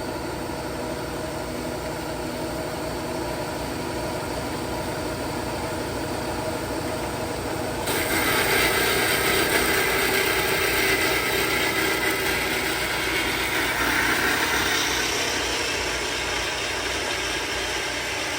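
Band saw motor running with the blade on a slow feed; about eight seconds in, the blade starts cutting the metal stock and a louder, higher cutting hiss joins the running sound.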